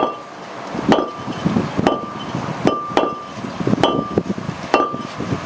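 Hammer blows on steel, about one a second, each with a short metallic ring.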